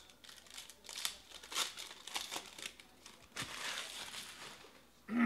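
Trading cards being handled and sorted into stacks, with the crinkle of a foil card-pack wrapper: irregular rustles and clicks of card stock, and a longer swish about three and a half seconds in.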